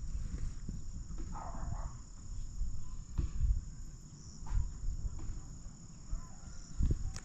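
Steady high-pitched insect chirring, with a few soft low knocks scattered through it.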